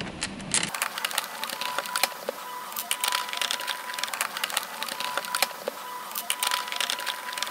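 Phillips screwdriver driving screws into the plastic shell of a Nerf Rival Kronos blaster: a quick, uneven run of small clicks and ticks as the screws turn and the plastic parts shift in the hand.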